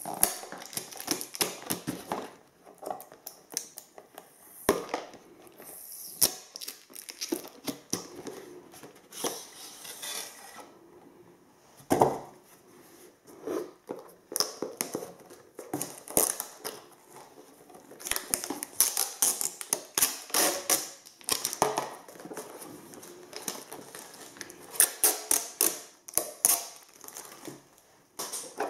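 Hands opening a plastic-and-cardboard retail box: peeling off tape tabs and working the clear plastic cover, with irregular rustling, scraping and small clicks and one sharp knock about twelve seconds in.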